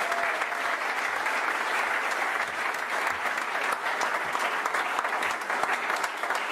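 Theatre audience applauding a curtain call: dense, steady clapping from many hands.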